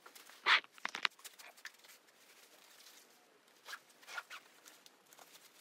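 Coat fabric rustling and swishing in short strokes as the coat is put on. The loudest swish comes about half a second in, with a few more around four seconds in.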